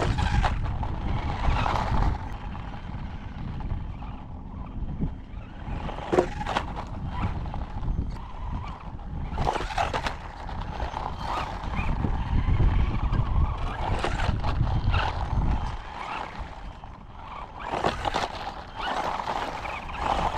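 Toy-grade 4x4 RC monster truck driving on gravel: its small electric motor and gears whine up and down with the throttle, and the tyres crunch on the gravel. There are a few sharp knocks about 6 and 10 seconds in.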